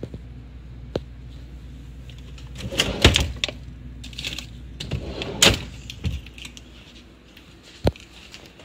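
Plastic refrigerator drawer being pulled open and packaged snacks inside it handled: a series of knocks, clatters and rattles, with a sharp click near the end, over a low steady hum.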